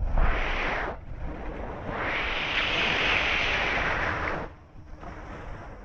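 Sea waves breaking and washing up the shore: a short surge, then a longer, louder one about two seconds in. Wind buffets the microphone with a low rumble throughout.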